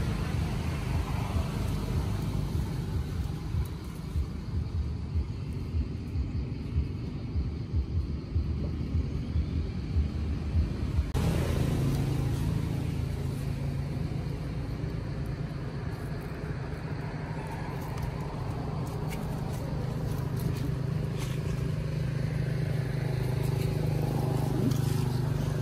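A low, steady rumble that changes abruptly about eleven seconds in.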